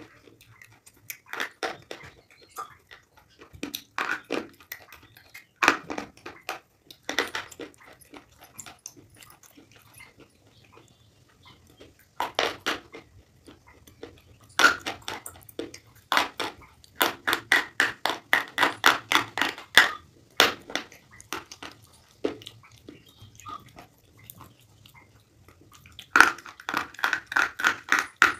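Slate pencils being bitten and chewed: sharp, dry crunches in bursts separated by short pauses, with quick runs of several crunches a second in the middle and near the end.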